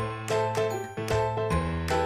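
Background music: a bright, bell-like melody over a steady bass line, with a new note about every half second.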